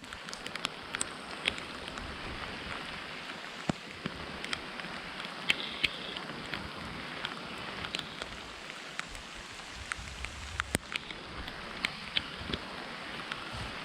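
Heavy rain falling on lake water: a steady hiss with many sharp ticks of drops striking close by.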